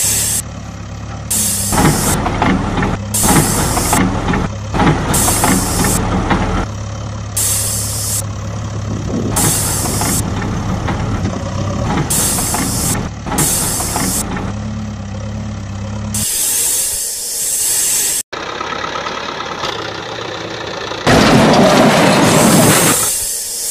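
Heavy-machine diesel engine sound effect running steadily, with short hissing bursts about once a second. The engine drops out after about 16 seconds, and a loud rushing noise lasting a couple of seconds comes near the end.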